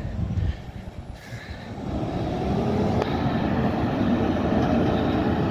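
Peterbilt 520 McNeilus ZR garbage truck pulling away: the engine's drone and road noise swell about two seconds in and then hold steady.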